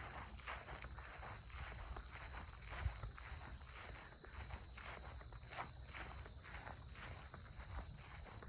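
Crunching footsteps at a steady walking pace, about two steps a second, over a steady high-pitched chorus of crickets.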